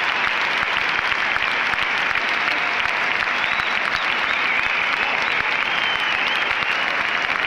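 A large crowd applauding steadily: dense, even clapping from thousands of hands.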